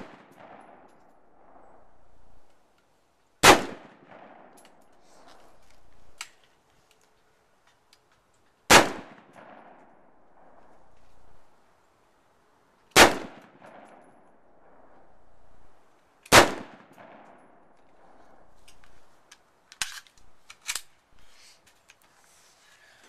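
Four slow, aimed single shots from an LWRC M6A2 5.56 mm AR-15-pattern rifle, each several seconds apart and trailing off in echo. A few lighter clicks follow near the end.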